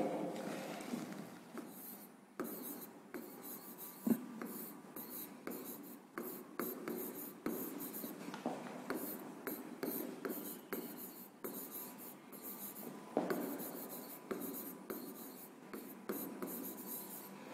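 Stylus writing by hand on an interactive smart board's glass touchscreen: a faint, uneven run of short scratchy strokes and light taps as letters are formed, with a sharper tap about four seconds in.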